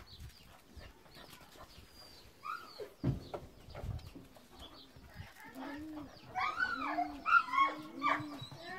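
Animal calls: from about the middle, a low call repeats roughly every half second, with louder, higher cries that rise and fall above it. Before that there are only scattered light clicks and scuffs.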